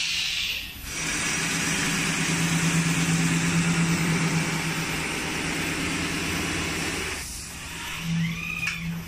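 CNC abrasive-belt polishing machine grinding a metal faucet part: a steady hiss of belt on metal over a low motor hum. It dips briefly about a second in and falls away about seven seconds in as the belt eases off the part.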